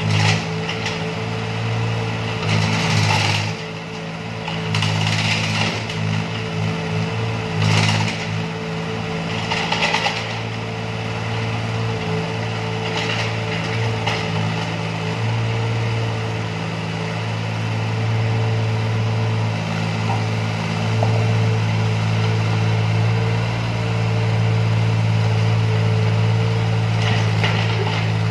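Walking excavator's diesel engine and hydraulics running steadily under load while it digs in broken road rubble, with short harsh scraping bursts a few times in the first ten seconds and again near the end.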